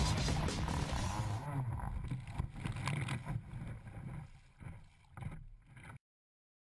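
Water rushing and spraying past a board skimming across the sea, with wind on a camera microphone mounted on the board. It fades over several seconds, then cuts off abruptly about six seconds in.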